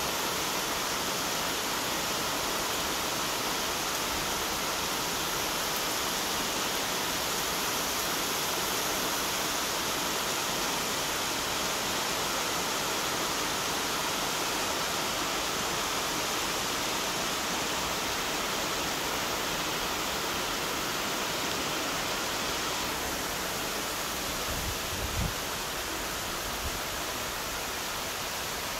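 Heavy rain pouring steadily, an even unbroken hiss. A brief low thump sounds near the end.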